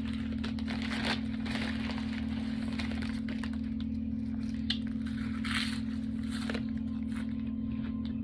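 Crunching and crinkling from eating a toasted sub sandwich, with irregular crackles and a sharp click about two-thirds of the way in, over a steady low hum.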